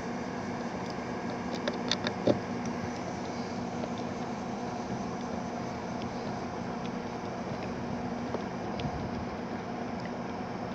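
Steady low mechanical hum throughout, with a few small clicks and taps about two seconds in, as a Phillips screwdriver works the screws of a car door's lock switch panel.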